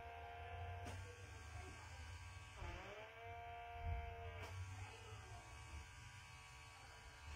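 Small battery-powered pore vacuum (Pore Cleansing MD system) whining faintly as its suction tip is moved over the nose. About two and a half seconds in, its pitch dips and climbs back to a steady whine.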